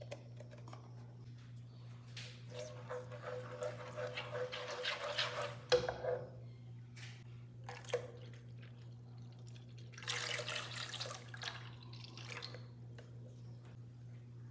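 Thick cream squeezed out of a carton and plopping into a saucepan of condensed milk, then a sharp knock. After that, milk is poured into the pan and splashes in the liquid. A low steady hum runs underneath.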